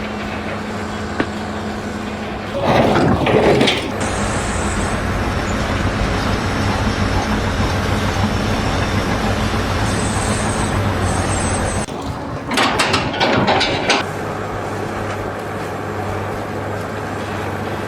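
A heavy engine running steadily, with two louder noisy rushes, one about three seconds in and one about thirteen seconds in, each lasting a second or so.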